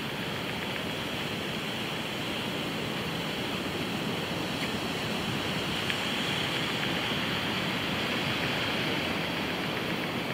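Steady rushing noise of surf breaking on a sandy beach, a little louder about halfway through.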